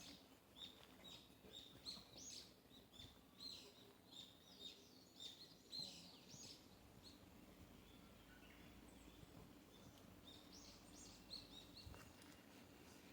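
Faint forest birdsong: small birds chirping in quick runs of short, high notes through the first half, then a pause, then another run near the end.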